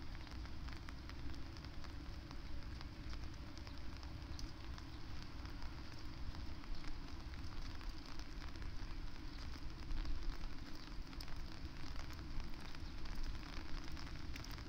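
Steady rain pattering, with many small drop ticks over a low, gusting wind rumble.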